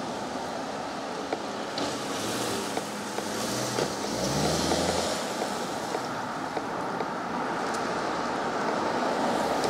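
Street traffic noise, with a car driving past close by: engine hum and tyre noise swell from about two seconds in and fade after about five.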